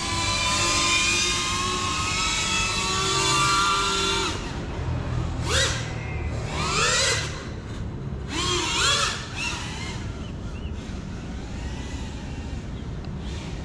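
GEPRC Cinelog 35 FPV drone's motors and ducted propellers whining, several pitches at once, steady for about four seconds. Then come three short throttle punches, each rising sharply in pitch, before the sound settles to a fainter hum.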